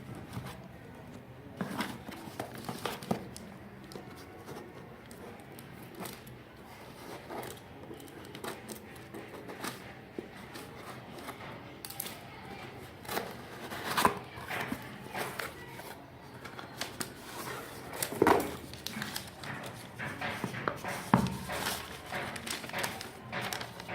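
Parcel packaging being handled and opened by hand: irregular clicks, taps and crinkles, a few louder knocks about two-thirds of the way through.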